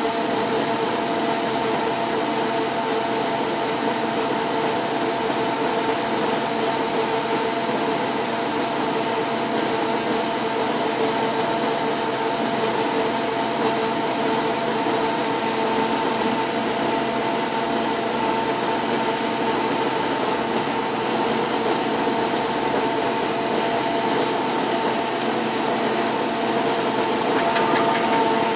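Steady machine hum from a powered-up Hitachi Seiki HPV 23 CNC lathe: an even hiss with a few steady tones held throughout.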